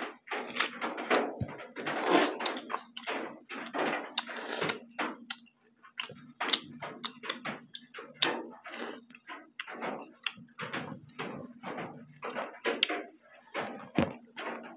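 Close-up eating sounds: a rapid, irregular run of wet chewing and lip smacks from two people, with fingers working rice on a banana leaf, over a faint steady low hum. A couple of low knocks stand out, one early on and one near the end.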